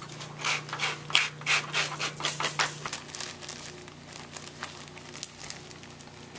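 Clear plastic bag being handled and crinkled, with a dense run of rustles and crackles for the first three seconds and lighter handling after. A low steady hum runs underneath and stops about three seconds in.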